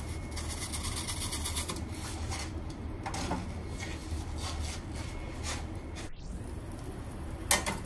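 Wooden pizza peel scraping and knocking as a pizza is slid off it onto the stone of an Ooni Koda 16 gas pizza oven and the peel is drawn back and set down, over a steady low rumble from the oven's burning gas flame. A single sharp clack comes near the end.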